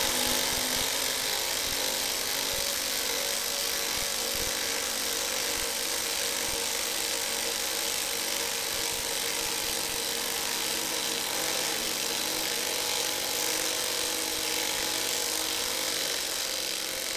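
Cordless 18 V impact wrenches, a Bosch GDX 18V-1800 and a Dongcheng DCPB02-18, hammering steadily as they drive 10 cm long 13 mm screws into a wooden log.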